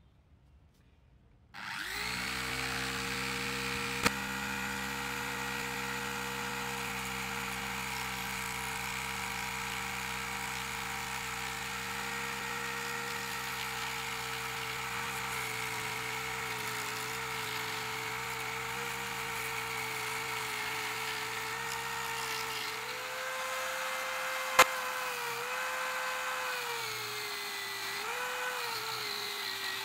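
Corded electric drill driving a homemade wood lathe switches on a second or two in and runs at a steady speed with a motor whine. Near the end its pitch sags and wavers as a tool bites into the spinning wood. A sharp click a few seconds in and a louder one about three-quarters of the way through.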